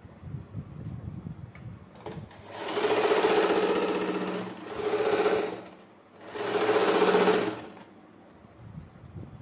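Electric domestic sewing machine stitching in three short runs, a longer one about two seconds in, then two shorter ones, each starting and stopping as the fabric is guided: loose basting stitches holding a suit's back neck onto its facing. Light fabric-handling noises come before and after the runs.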